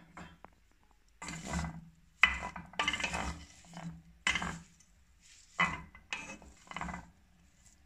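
A wooden spoon scraping and stirring shredded chicken and onion across a ridged stainless-steel pan, in about eight separate strokes starting about a second in.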